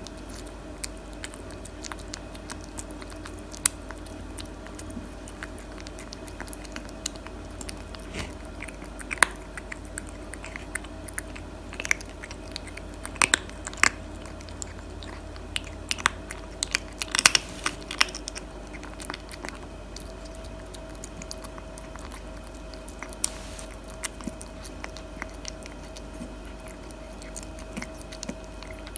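A tabby cat eating close up: irregular crunches and wet chewing as it works through dry kibble mixed with wet food, the crunches busiest in the middle. A faint steady hum sits underneath.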